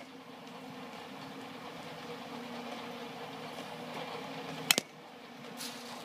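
A single sharp crack of a bat hitting a pitched baseball about three-quarters of the way in, over a steady mechanical hum.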